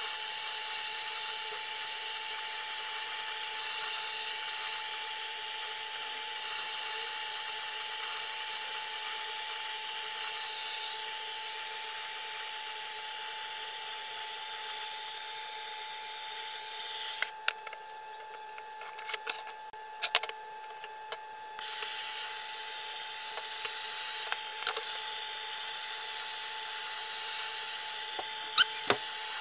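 Butane canister blowtorch hissing steadily as its flame scorches the surface of a pine board, with a faint steady tone under the hiss. About seventeen seconds in the hiss stops for a few seconds, leaving a few clicks and knocks, then the torch hisses again.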